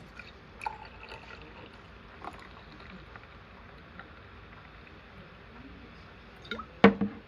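Steady low rumbling noise with scattered light clicks, then a loud pair of sharp knocks with a brief ring near the end.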